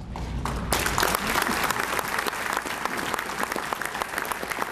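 Audience applauding: a few scattered claps, then full clapping from about a second in, holding steady.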